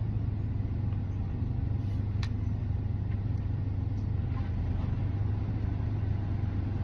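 A steady low rumble, with a single light click about two seconds in.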